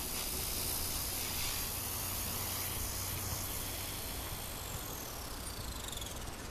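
Small electric RC helicopter's motor and rotor whining high and steady, then falling steeply in pitch near the end as it spools down, with wind buffeting the microphone.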